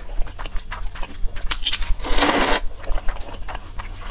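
Close-up slurping of glass noodles, with one long, loud slurp about two seconds in and small mouth clicks between.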